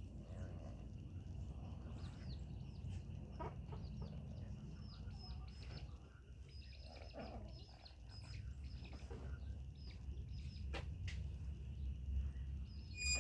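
Chickens: many short, high chirps repeating throughout, with a few lower calls, over a steady low rumble. A sharp click comes near the end.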